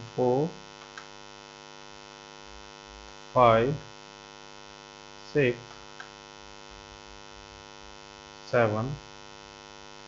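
Steady electrical mains hum, a buzzy drone with many overtones. It runs unchanged under a few short spoken words.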